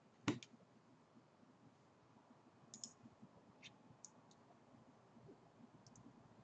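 A handful of faint, scattered computer mouse clicks over near-silent room tone. The loudest comes just after the start.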